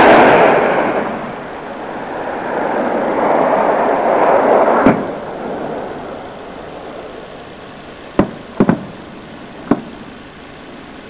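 Combat noise at night: a sudden loud blast that rolls away over about a second, then a swelling rush of noise ending in a sharp crack about five seconds in, and a few short, sharp reports near the end.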